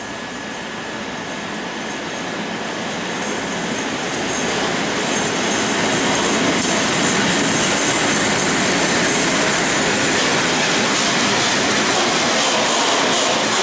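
Class 56 diesel locomotive hauling a freight train of autoballaster hopper wagons through a station. The sound grows louder over the first five or six seconds as the locomotive comes in, then holds at a steady heavy rumble and clatter of wagon wheels passing close by, with a thin, high wheel squeal over it.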